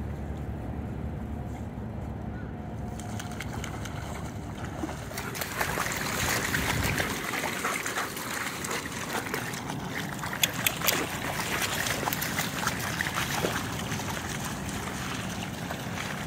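Dogs wading and splashing through shallow water, a dense crackle of splashing that starts about five seconds in, with a few sharper splashes a little after the middle. Before that, only a low steady rumble.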